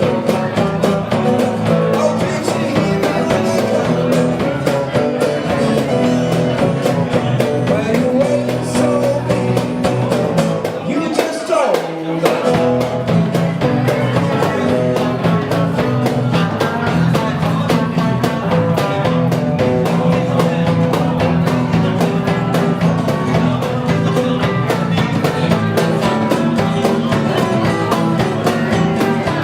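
Rock band playing live: electric guitar, bass and drums, with some singing. About eleven seconds in there is a short break with a sliding pitch before the band plays on.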